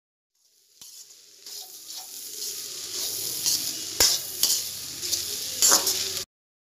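Egg fried rice sizzling in a metal kadai as a metal spatula stirs and scrapes through it, with sharp clinks of the spatula on the pan about four seconds in and again near the end. The sound starts about a second in and cuts off suddenly.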